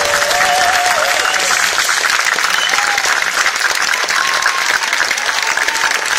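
Concert audience applauding at the end of a song, a dense steady clapping with a few cheering voices in the first second or so.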